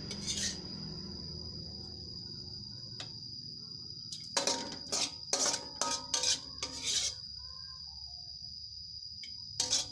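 A spatula scraping and knocking against an aluminium wok in a run of quick clattering strokes about halfway through, and again just before the end, as stir-fried vegetables are worked and scooped out of the wok. A steady high-pitched whine runs underneath.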